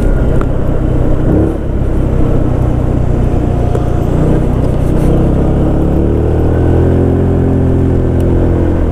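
Chinese GY6 scooter's single-cylinder four-stroke engine running under way, with road and wind noise. The pitch rises steadily as it accelerates partway through, then holds. It is running smoothly on its rebuilt carburetor.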